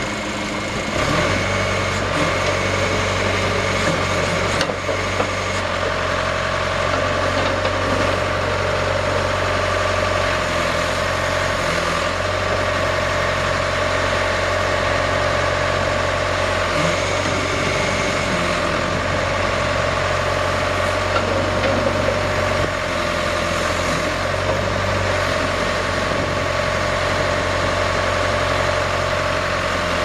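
1986 John Deere 410C backhoe loader's diesel engine running steadily while the backhoe boom and bucket are worked hydraulically. The engine note steps up about a second in and shifts a few more times as the boom moves.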